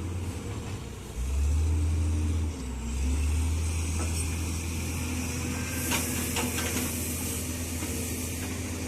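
Hitachi excavator's diesel engine running steadily, growing louder for a second or so about a second in as it takes hydraulic load. Near the middle, a high hiss with a few short knocks.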